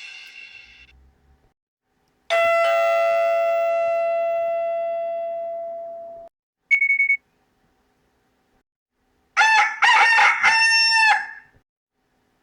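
Nokia 6131 mobile phone alert tones. A single bell-like chime rings out and fades over about four seconds, then a brief high beep, then a warbling run of sliding notes near the end.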